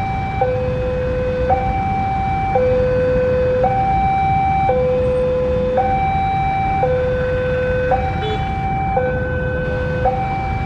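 Railway level-crossing warning alarm sounding: a higher and a lower tone take turns, each held about a second. Beneath it is a steady low rumble from an approaching diesel locomotive.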